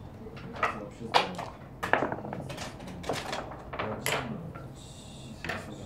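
Backgammon checkers and dice clacking on a wooden board as a player moves pieces: a series of sharp clicks about every half second to second.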